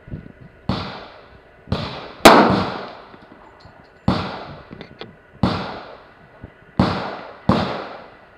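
Pistol shots fired in a slow, uneven string, about seven in a few seconds, each a sharp crack with a short decaying tail; the one about two seconds in is the loudest.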